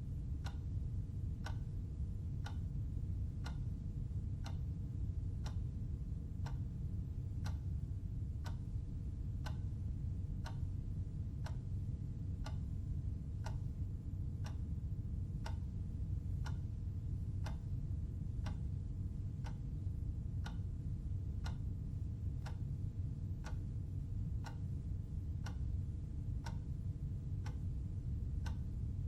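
Clock ticking steadily, evenly spaced ticks over a constant low hum.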